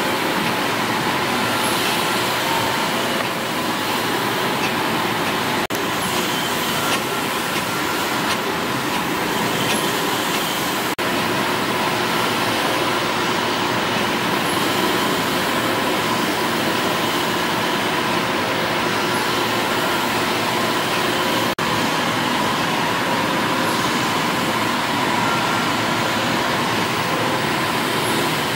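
Steady running noise of several stationary steam engines in an engine hall, a dense whirr and hiss with a faint steady hum. It breaks off for an instant three times.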